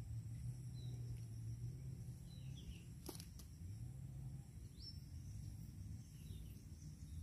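Faint outdoor ambience: a bird giving short chirps a few seconds apart over a steady high insect drone and a low hum, with a single sharp click about three seconds in.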